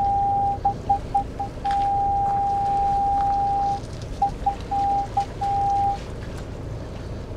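A reversing car's parking-sensor warning tone: a continuous beep broken twice by runs of short rapid beeps, stopping about six seconds in, kept going by the boat trailer hitched behind. Under it is a low rumble of engine and wind.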